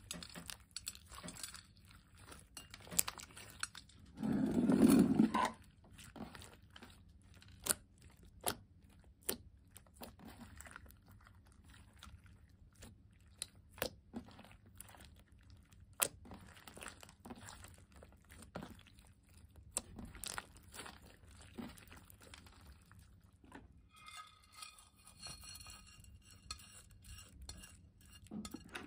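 Sticky slime full of sprinkles and beads being squished and kneaded by hand, giving scattered sharp clicks and pops. About four seconds in there is one louder, lower squish lasting about a second, and near the end the clicking thickens into a denser crackle.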